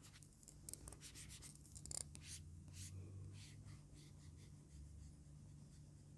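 Faint, scratchy strokes of the ONYX BOOX round-shaped stylus nib on the ONYX BOOX Note 3's e-ink screen: a series of short strokes, the loudest about two seconds in. The nib is made to give a paper-like friction.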